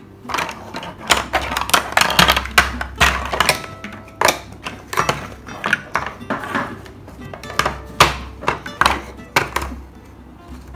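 Large plastic building blocks clattering: sharp, irregular clicks and thunks as the pieces are picked up, knocked together, set down on the table and pressed onto one another.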